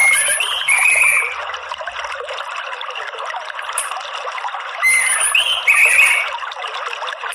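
A steady trickle of running water with an orange-headed thrush calling over it in two short bursts of chirping notes, one at the start and one about five seconds in.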